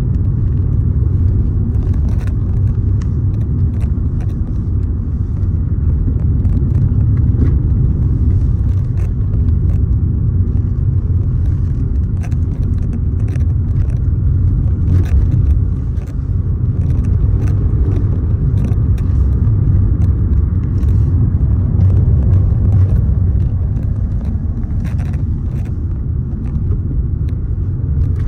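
Steady low rumble outdoors, with faint scattered clicks over it.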